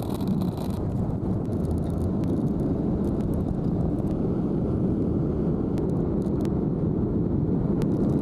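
Steady road and engine rumble of a car driving, heard from inside the cabin.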